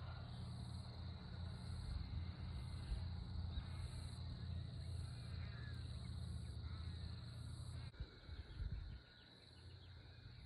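Rural outdoor ambience: wind rumbling on the microphone, with a steady high-pitched hum and a faint high pulsing chirr repeating a bit more than once a second. The wind rumble drops away about eight seconds in.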